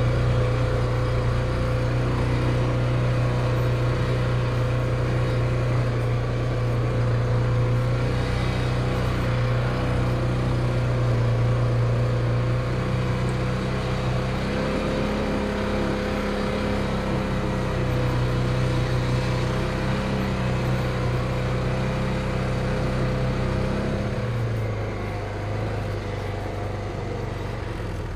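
Polaris Ranger 570 UTV's single-cylinder engine running at a steady speed while it drags a landscape rake over tilled soil. Its pitch shifts about halfway through, and it eases off a few seconds before the end.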